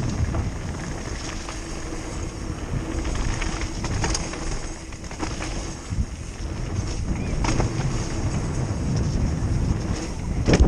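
Wind buffeting a helmet-mounted camera and mountain bike tyres rolling fast over a dirt forest trail, a steady low rumble. Several sharp knocks and rattles from the bike over bumps, the loudest just before the end.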